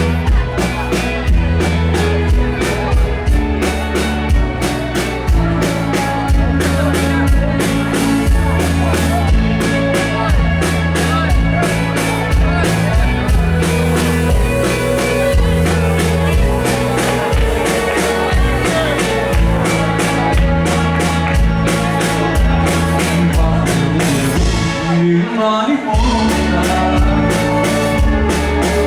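A band playing live, rock-style music with drum kit, bass and guitar, to a steady beat. About 25 seconds in, the bass and drums drop out for about a second before the band comes back in.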